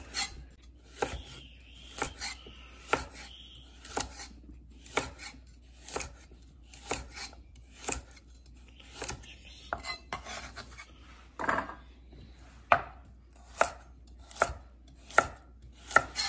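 Chef's knife slicing carrots on a bamboo cutting board: the blade knocks on the board about once a second, each stroke a short crisp chop through the carrot.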